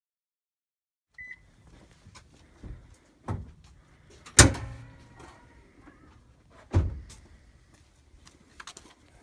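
Scattered knocks and clicks from parts being handled around a truck's air intake as it is opened up for a filter change. One sharp knock a little before the middle is the loudest and rings briefly; another strong knock follows a couple of seconds later.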